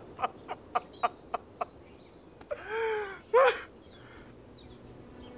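A man sobbing in a string of short, gasping cries, then letting out a drawn-out wail that falls in pitch and a loud, sharp cry about three and a half seconds in.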